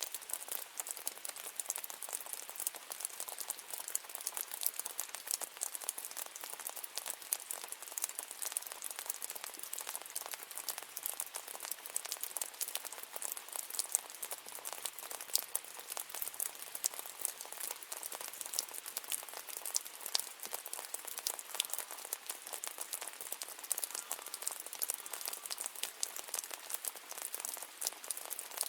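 Steady rain falling, a dense, even patter of individual drops striking a surface, crisp and high with almost no low rumble.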